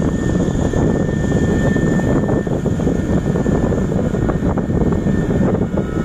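Kubota DC-70 PLUS rice combine harvester running close by as it drives on its crawler tracks: a loud, steady drone of diesel engine and machinery, with a thin high whine over it.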